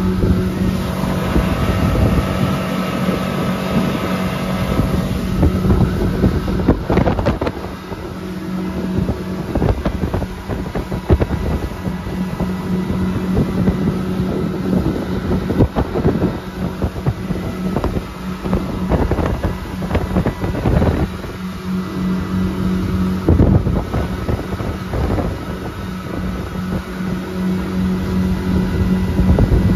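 Motorboat engine running steadily underway, with wind buffeting the microphone and irregular thumps.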